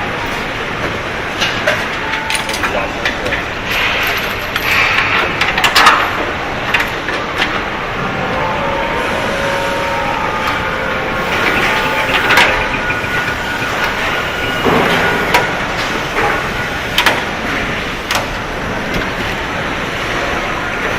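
Car assembly line noise: a steady din of machinery with scattered clanks, clicks and knocks from tools and parts.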